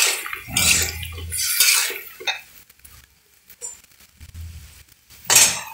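A metal spatula scrapes and clinks against a large metal karahi while chunks of beef liver and potato are stirred. The noise comes in bursts through the first two seconds, goes quieter, and ends with a short loud scrape near the end.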